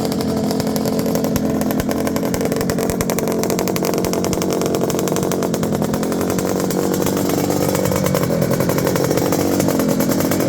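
Bimota 500's two-stroke V-twin engine running with its buzzy, chainsaw-like note. The revs rise a little after about six seconds and again near the end.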